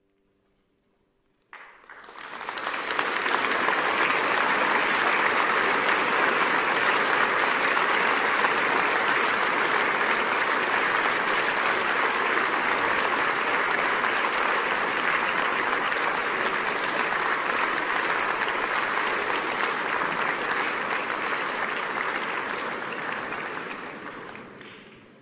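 Sustained applause, starting suddenly about a second and a half in, holding steady, then fading out near the end.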